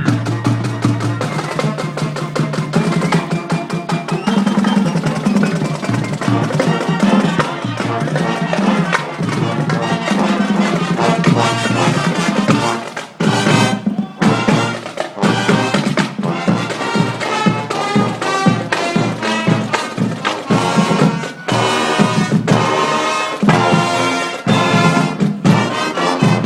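A band playing, with brass and drums keeping a steady, driving beat; the music drops off briefly about halfway through, then comes back in.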